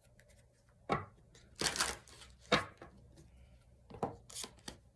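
Tarot cards being shuffled and handled: a few irregular, short slaps and riffles of the deck, with a longer swish about a second and a half in.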